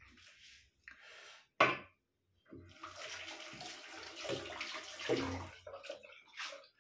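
Water running from a tap into a sink for about three seconds, with a sharp knock a little before it.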